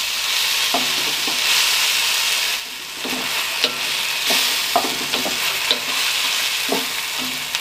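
Sardines in chilli sambal sizzling in hot oil in a wok, stirred gently with a wooden spatula that scrapes and knocks against the pan every second or so. The sizzle dips briefly about two and a half seconds in.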